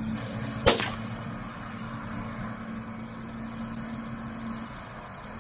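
A single rifle shot from an AR-style rifle about a second in, sharp and loud. Under it runs the steady hum of an engine, which stops near the end.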